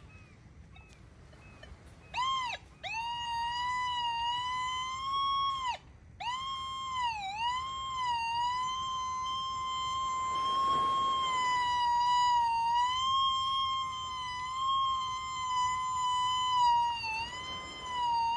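A metal detector gives a loud, continuous electronic tone as its coil sweeps over a buried target. The tone starts about two seconds in, cuts out twice briefly and dips in pitch a few times, then holds steady. It signals a large metal target, which the detectorist takes for something very big.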